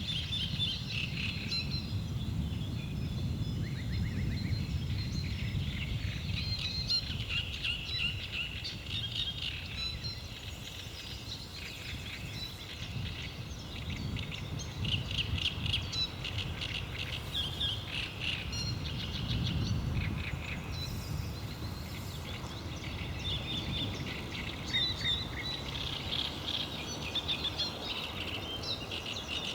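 Small birds singing and chirping in a dawn chorus, many short calls and trills overlapping, over a steady low rumble.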